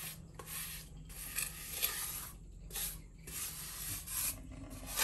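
A steel trowel scraping and smoothing a bed of fresh cement mortar on a floor, in about eight rough scraping strokes.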